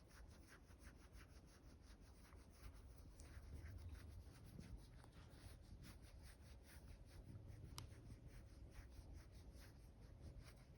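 A senior dog faintly panting in quick, even breaths, about five a second.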